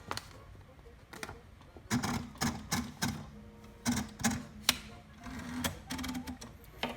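Irregular mechanical clicks and clacks from a 1969 Royal Mustang (Silver-Seiko) ultra-portable typewriter as it is worked by hand. The clicks are sparse at first and come about two to three a second from about two seconds in.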